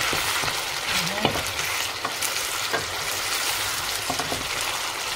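Pork pieces frying in oil in a metal pot, a steady sizzle full of small crackles, stirred now and then so that a few sharper clicks and scrapes come through. The pan is on fairly high heat and the meat is starting to stick to the bottom.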